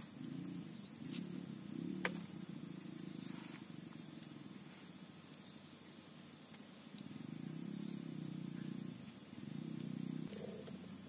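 Insects buzzing steadily at a high pitch, with a low rumble that comes and goes and a single sharp click about two seconds in.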